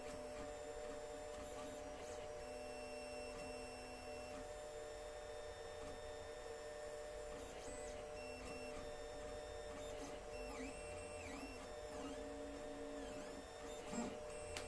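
Alfawise U10 3D printer at work: stepper motors whine in short tones that change pitch and start and stop as the print head and bed move, over a steady fan hum. A couple of light clicks near the end.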